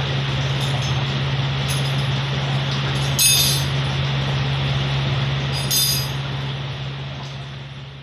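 Steady low hum and rushing noise of a running electrical appliance, with two short high-pitched sounds about three and six seconds in; the whole fades down near the end.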